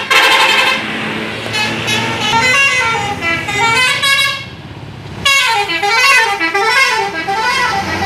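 Bus 'telolet' horn, a multi-tone musical air horn, playing a stepped melody. It dips briefly a little past the middle, then comes back about five seconds in with a quick warbling up-and-down tune.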